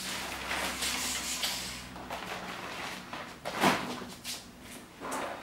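Traper folding fishing chair being handled: its fabric rustling and its metal frame shifting, with a sharp louder knock about three and a half seconds in and a smaller one near the end.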